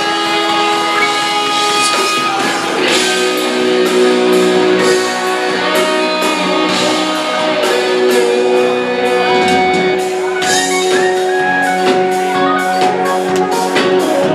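A live rock band playing: long held guitar notes over a steady drum and cymbal beat.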